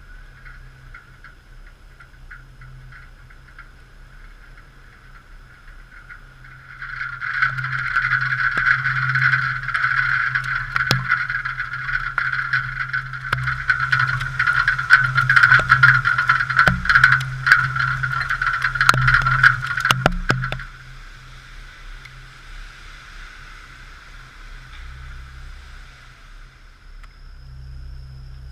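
Typhoon wind and rain, muffled through a waterproof camera housing. In the middle there is a louder stretch of about thirteen seconds, full of sharp ticks, that starts and stops abruptly.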